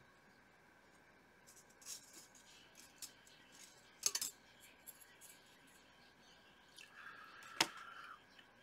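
Faint, light metallic clicks and taps as a photo-etched brass part is worked free of a metal etch-bending tool with tweezers and picked up. Two sharper clicks stand out, about four seconds in and near the end.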